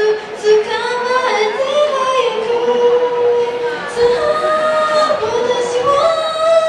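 A teenage girl singing solo into a handheld microphone, holding long notes and gliding between pitches.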